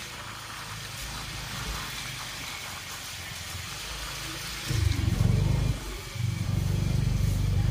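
Motorcycle riding along a wet lane, with steady engine and road noise. About five seconds in, a much louder low rumble sets in and carries on.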